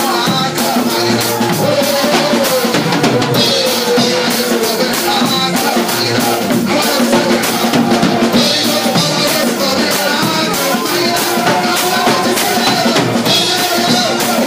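Church praise music: a drum kit keeps a steady beat of bass drum, snare and cymbals under amplified singing.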